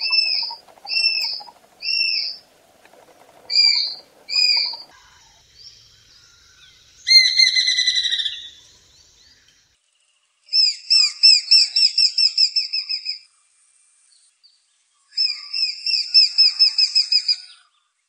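Besra (Accipiter virgatus) calling. First comes a run of single arched whistled notes, about one a second. A longer falling call follows about seven seconds in. Then come two rapid chattering series of a dozen or more notes each, about five a second.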